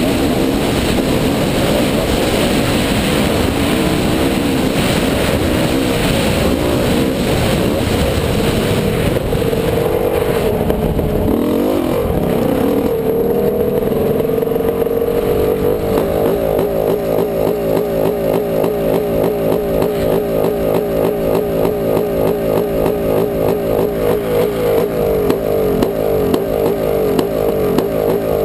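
Dirt bike engine running under load with wind rushing over the microphone, its pitch shifting with the throttle. About halfway through it slows and settles into a steady, pulsing idle.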